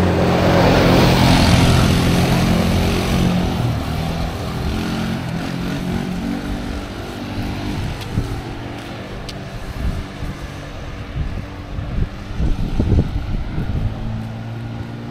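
A motor vehicle's engine running as it passes, loudest in the first couple of seconds and fading away over the next few. Afterwards, quieter outdoor background with a few soft thumps near the end.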